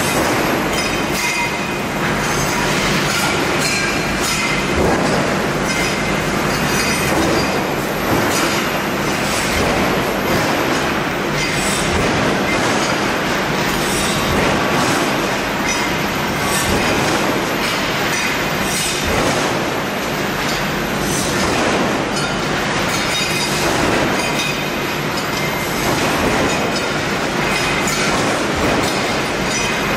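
Continuous steel-plant din: a dense clatter of metal knocks and scraping over steady machine noise, with no pause.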